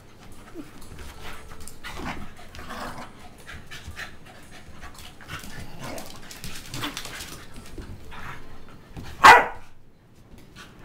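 Two Pembroke Welsh Corgis play fighting, barking and panting as they wrestle, with one loud bark about nine seconds in. It is play, not a real fight.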